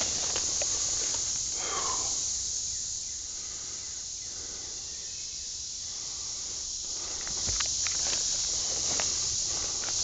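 Footsteps and rustling of leaves and brush as a person pushes on foot through thick woodland undergrowth, over a steady high hiss.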